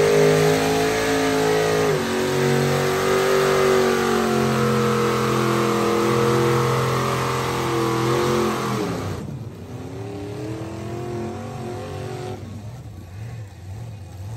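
Truck engines held at high revs under load, straining in a tug-of-war pull. About nine seconds in the revs drop off sharply, and a softer engine revs up and down briefly before settling.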